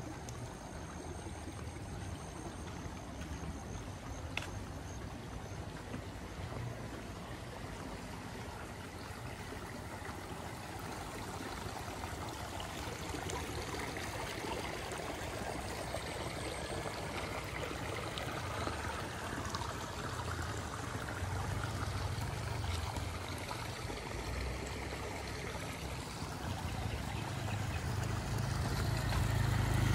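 Steady trickling and gurgling of water running in a small irrigation channel beside the path. A motor scooter approaches near the end and grows louder.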